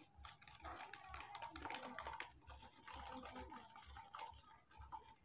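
Faint, rapid, irregular small clicks and ticks.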